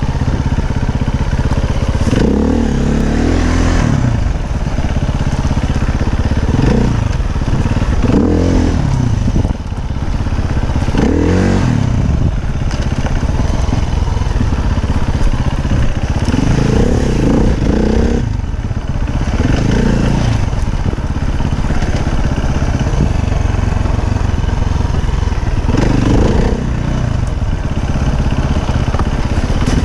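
Husaberg FE350's 350 cc four-stroke single-cylinder engine running as the dirt bike is ridden on a rough trail, its revs rising and falling again and again as the throttle is opened and shut.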